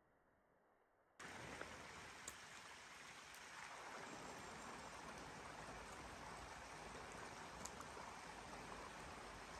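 Near silence, then from about a second in a steady outdoor rushing noise, with a few faint ticks.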